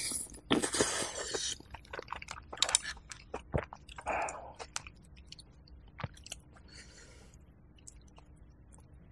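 Close-miked mouth sounds of a person eating chicken porridge with crispy rice crust: a loud slurp of a hot spoonful about half a second in, then chewing with wet mouth clicks that grow quieter through the second half.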